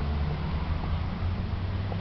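Steady low background rumble with a faint even hiss above it.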